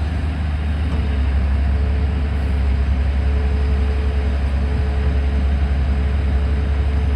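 Tata Hitachi hydraulic excavator's diesel engine running steadily under work, a loud low rumble with a faint steady whine that comes in about two seconds in.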